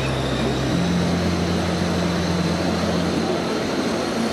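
Busy indoor exhibition-hall ambience: crowd chatter over a steady low hum that shifts pitch about a second in, with a faint high whine.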